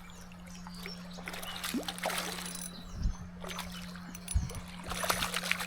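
Creek water splashing and trickling, with scattered small knocks and rustles, over a steady low hum.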